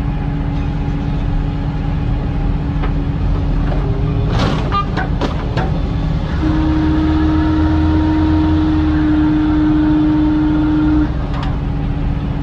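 Tow truck running with a steady hum. A few sharp metallic knocks come around four to five seconds in. Then the hum steps up to a louder, slightly higher pitch for about four and a half seconds before dropping back.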